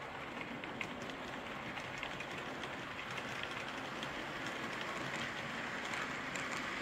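OO gauge model train, a Bachmann 4 EPB electric multiple unit, running along the track: a steady rushing rattle from its motor and wheels with light clicks over the rail joints, growing a little louder in the second half as it passes close.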